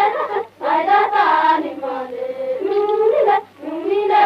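Gondi Maria folk song from an old field recording: high voices singing in long phrases, breaking off briefly about half a second in and again near three and a half seconds. The sound is dull, with little treble.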